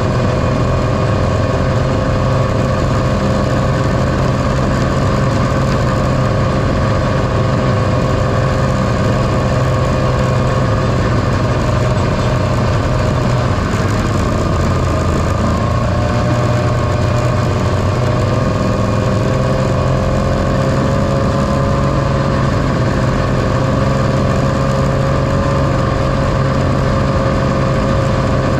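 1978 John Deere Liquifire snowmobile's two-stroke engine running steadily at trail speed, heard from the rider's seat. The engine note dips briefly about halfway through and picks back up.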